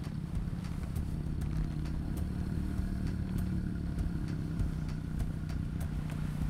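A deep, steady low rumble with a faint hum in it and scattered light clicks throughout.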